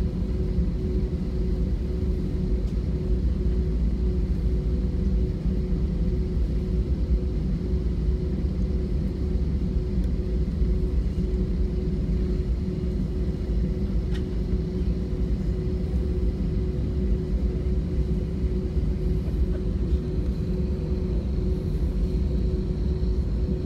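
Airbus A321's IAE V2500 turbofan engines at low taxi thrust, heard inside the cabin over the wing: a steady low rumble with a constant hum that neither rises nor falls.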